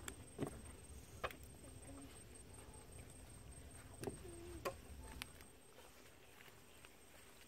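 Faint scattered knocks and scrapes of hands working wet mud around plastic pipes and a bucket, about five sharp ticks in all, over a low rumble that dies away about six seconds in.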